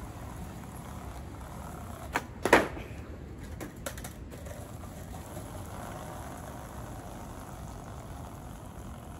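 Skateboard clacking on pavement: a sharp snap about two and a half seconds in, a smaller knock just before it, and a few lighter knocks over the next two seconds, over a steady low hum.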